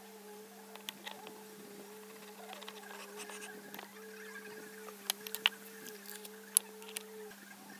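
Light clicks and taps of metal bench-vise parts being handled and fitted together, with a few sharp ones around five to six and a half seconds in, over a steady droning hum.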